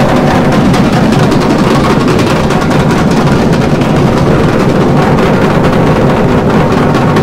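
Drums played fast and loud, a continuous dense rattle of strokes with no pauses.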